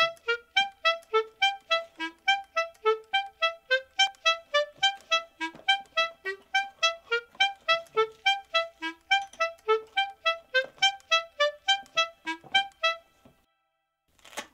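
Background music: a quick, even run of short melodic notes, about three or four a second, which stops about a second before the end. A brief sharp click comes just before the end.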